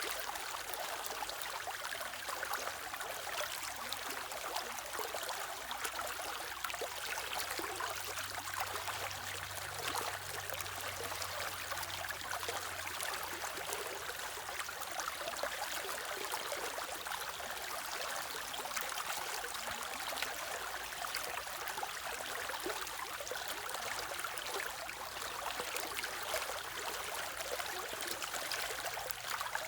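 Stream water running steadily, a continuous even rush and trickle of flowing water.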